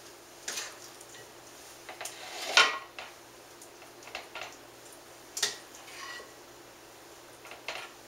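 A spoon knocking and scraping against a glass mixing bowl and a bundt pan as sticky dough is spooned out: a handful of separate short clinks and scrapes, the loudest about two and a half seconds in.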